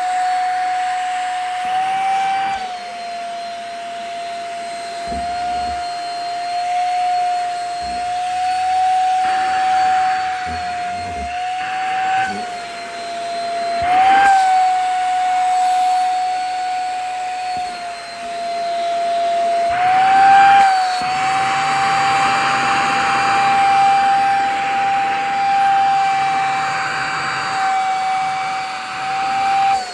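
Vacuum cleaner running with a steady motor whine, its pitch wavering and jumping up briefly a few times as the nozzle sucks at a shirt's fabric. A rushing air hiss grows louder about two-thirds of the way through.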